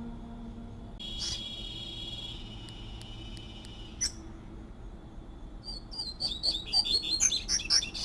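Double-collared seedeater (coleiro) singing its fluted 'tui tui' song: a held high whistled note about a second in, then near the end a quick run of short, louder whistled notes.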